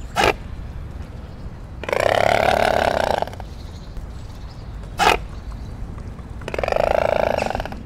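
Swan calling: two drawn-out calls, each a little over a second long, with two brief sharp sounds between them, over a low steady rumble.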